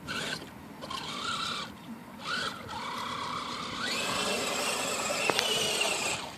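Electric RC crawler's brushed 27-turn motor whining in three short throttle blips, then held on for a longer run of about three and a half seconds with its whine rising in pitch.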